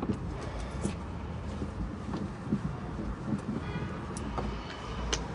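A squeegee being wiped and scraped across a car's windshield, heard from inside the cabin: irregular scrapes and knocks on the glass, with a short squeak a little past halfway, over the low hum of the idling car.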